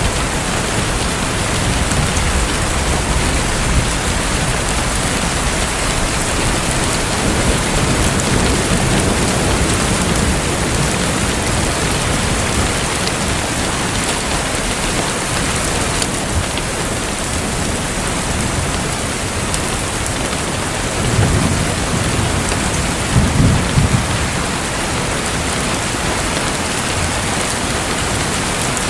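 Steady rain-like hiss of falling water, with low rumbles swelling in the first third and two stronger low rumbles about three-quarters of the way through.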